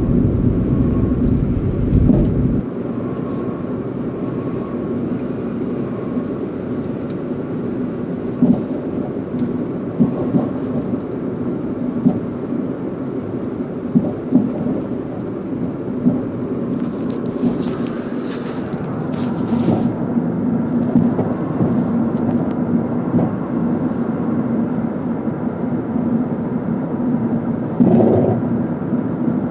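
Toyota Starlet driving with steady road and engine noise, broken by sharp knocks every couple of seconds and a short burst of clatter partway through. The knocks come from the rear passenger-side suspension over small bumps, the sign of a worn rear shock absorber.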